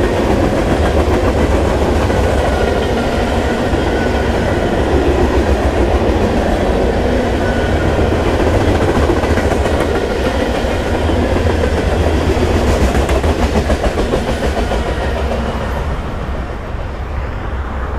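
CSX freight train's open-top hopper cars rolling past at close range, the steel wheels rumbling and clacking over the rail joints. The sound eases off near the end as the last cars move away.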